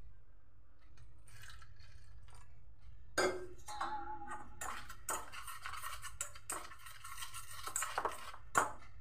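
Water poured into flour in a stainless steel bowl about three seconds in, followed by a wire whisk beating the gram flour batter: rapid scraping and clinking of the whisk wires against the steel bowl.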